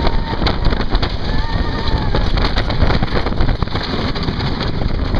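Wind rushing over a phone microphone on a moving roller coaster, over the rumble of the train on its track. A rider lets out a drawn-out yell about a second in.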